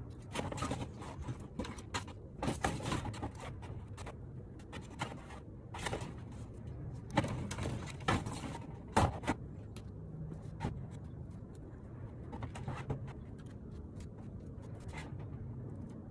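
Clear plastic roofing panel being pushed and slid onto the shed's roof frame by hand: a string of light knocks, taps and rattles, with the loudest knocks a little past the middle.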